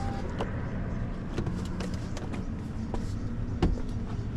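Truck engine idling with a steady low rumble, with scattered metallic clanks and knocks; the loudest knock comes about three and a half seconds in. A steady tone cuts off just at the start.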